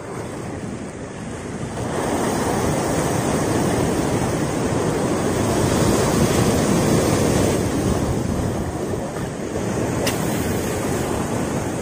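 Sea surf breaking and washing over rocks at the water's edge, swelling about two seconds in, peaking around the middle, then easing a little.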